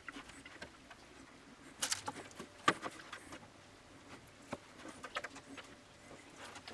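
Faint, scattered soft taps and light rustles: chocolate-dipped nut corners being set down one by one on baking paper, the clearest taps about two seconds in.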